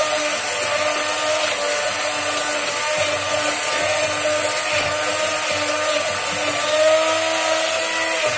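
Electric hand (immersion) blender running steadily with its blade in a pot of boiled raw-mango pulp, giving a continuous motor whine as it purées the mixture.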